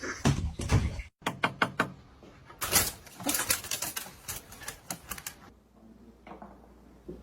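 Rapid, irregular clicking and tapping, broken by a brief cut about a second in, then quieter after about five and a half seconds.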